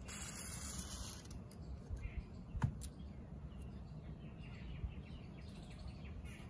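Faint bird chirps in the background, with a brief hiss in the first second and a single sharp click about two and a half seconds in.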